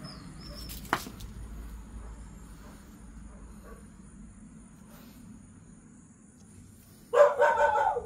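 A dog barks loudly near the end, a quick run of several barks, after a few seconds of low background noise with one sharp click about a second in.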